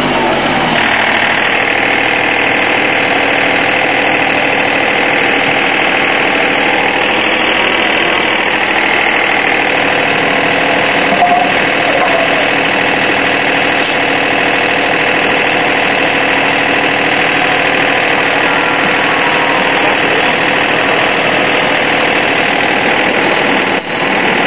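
An engine idling steadily, a constant even drone. Its pitch settles over about the first second and then holds.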